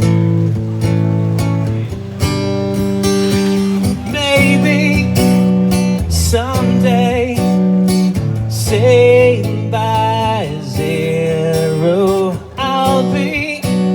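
Acoustic guitar strumming chords in a steady rhythm, an instrumental intro to an acoustic cover of a new-wave song. From about four seconds in, a wavering melody line with vibrato plays over the chords.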